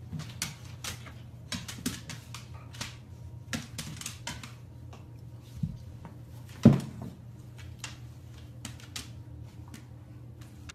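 Dogs' claws clicking and scrabbling irregularly on a hardwood floor as a puppy and a larger dog wrestle, with one louder thump about two-thirds of the way through.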